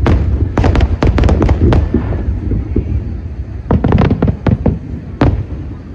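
Aerial fireworks shells bursting: a quick run of sharp bangs in the first two seconds, another cluster about four seconds in and a single bang near the end, over a continuous low rumble.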